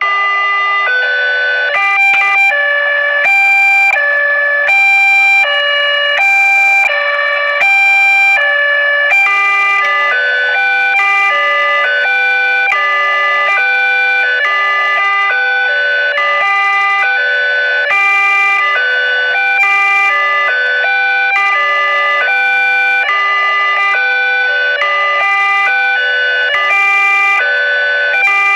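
Electronic siren alternating between high and low tones in steps. About nine seconds in the pattern changes to a quicker alternation with a lower note added.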